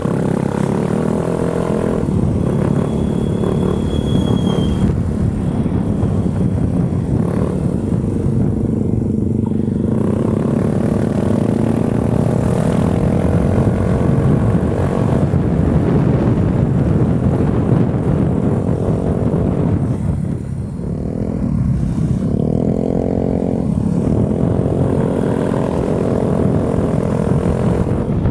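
Automatic scooter engine running while riding at road speed, with wind rushing over the microphone. About twenty seconds in the revs drop briefly, then climb again as it speeds back up.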